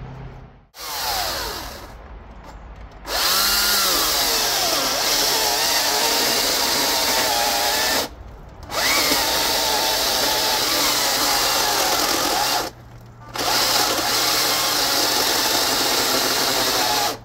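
Greenworks 82CS34 82-volt battery chainsaw, running on a 5 Ah battery, revved briefly and then cutting through a 17-inch red oak log. The motor pitch wavers as it bogs under load, and the sound breaks off twice for a moment between stretches of cutting.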